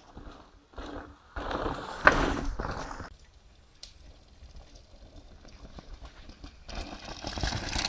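Downhill mountain bikes passing close on a dirt trail: tyres skidding on soil and stones, with the bike rattling and a sharp knock about two seconds in. A second bike comes through near the end.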